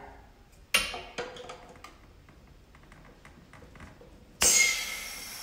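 Brass air fittings clinking as a quick-connect coupler and water-separator filter are fitted to an air compressor's outlet: one sharp clink about a second in, then a few lighter ticks. Near the end a sudden loud burst of compressed air hisses out of the fitting and settles into a steady hiss.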